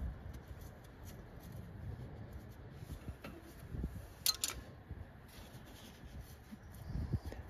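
Faint rubbing and handling noise of hand work with a wrench on an engine bolt, with small scattered clicks and one sharp metallic click about four seconds in.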